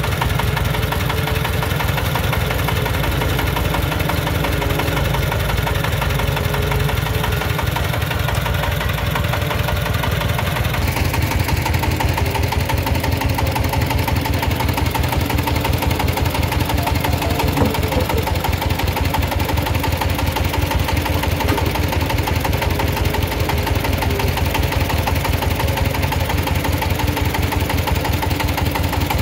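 Single-cylinder diesel engine of a công nông (homemade Vietnamese three-wheeled farm truck) running steadily with a rapid, even knocking beat. The sound gets a little brighter about eleven seconds in.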